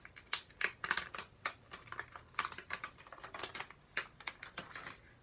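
Thin plastic backing film being peeled off a wet biocellulose sheet mask on the face: a run of irregular crackles and clicks that stops near the end.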